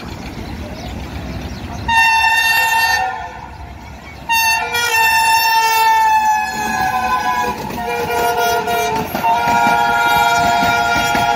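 Diesel locomotive horn giving several loud, chord-like blasts over the rumble of a passing passenger train: a short blast about two seconds in, then longer ones, the pitch of the second sinking slightly as the locomotive goes by.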